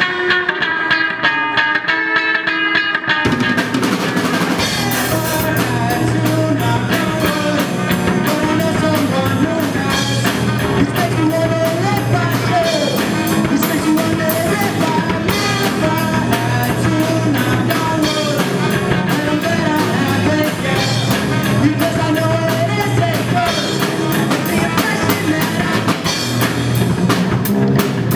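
A live rock band: electric guitar playing alone for about three seconds, then the drum kit, bass and the rest of the band come in together. A male voice sings over the band for a stretch in the middle.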